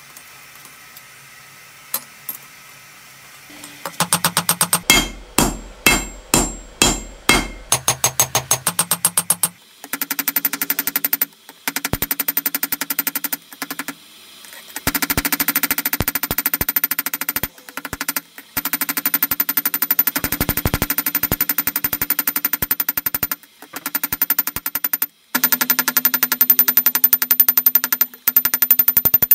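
Hammer blows on hot roller-bearing steel against an anvil as the bar is forged out: first about seven heavy, separate ringing strikes, then long runs of rapid, even blows broken by short pauses.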